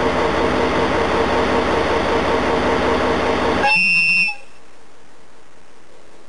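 A loud, steady rushing noise that cuts off abruptly about four seconds in, with a short horn-like toot just as it stops. After that only a faint steady background remains.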